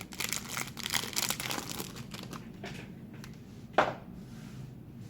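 Plastic trading-card pack wrapper crinkling and tearing as it is worked open by hand, busiest for the first two seconds, then sparser, with one sharp snap about four seconds in.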